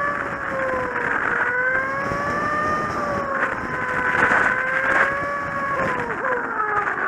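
Kawasaki Z750 inline-four engine running while the motorcycle is ridden, over wind noise. Its note rises and falls gently with the throttle and drops near the end as the bike slows.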